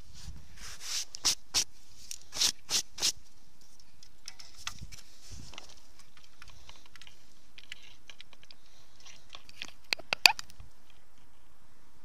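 Close handling noise: a quick run of about six scraping rustles in the first three seconds, faint rustling after, and three sharp clicks near the end.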